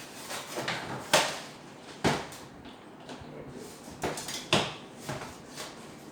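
Hard plastic and metal parts of a washing machine's timer assembly being handled and fitted by hand: a series of sharp, irregular clicks and knocks, the loudest about a second in and again about four and a half seconds in.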